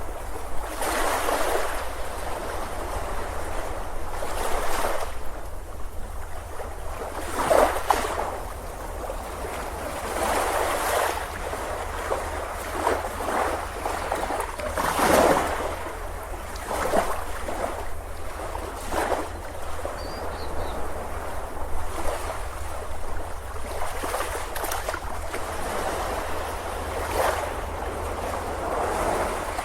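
Ocean surf on a beach: waves breaking and washing in and out in irregular swells, the biggest surges about 8 and 15 seconds in.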